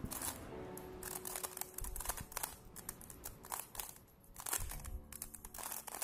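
Plastic 3x3 Rubik's cube turned rapidly by hand while it is scrambled, its layers clicking and rattling in quick irregular strokes, over background music with long held notes.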